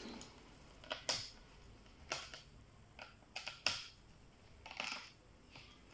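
Plastic clicks and short scrapes from hands working the battery and latches of a laptop's plastic underside: a dozen or so sharp clicks at irregular intervals, the loudest a little past the middle.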